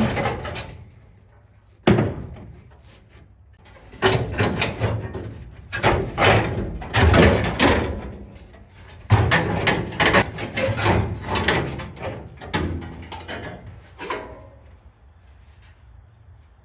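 Irregular knocks and clatters of metal parts being handled and moved about, coming in bursts and dying away about fourteen seconds in, over a steady low hum.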